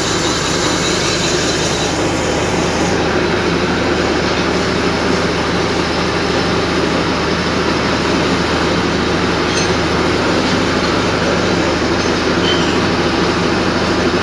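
Steady loud machine noise of a cylinder boring machine cutting the bore of a Massey tractor engine block, with a constant low hum under it. The highest hiss drops away about three seconds in.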